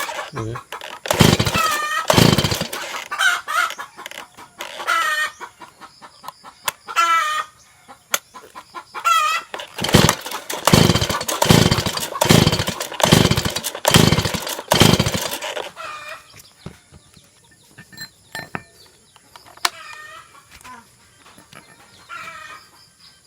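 A Stihl MS 170 chainsaw being pull-started without catching: short, loud rasping pull-cord strokes, a few near the start and then a quick run of about eight from about ten seconds in. Chickens cluck in between.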